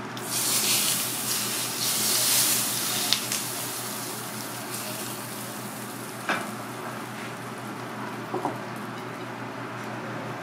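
Hot sauce sizzling as it is poured from a wok over a pan-fried red sea bream fillet, a loud hiss for about three seconds, followed by a steady kitchen background with a few light knocks.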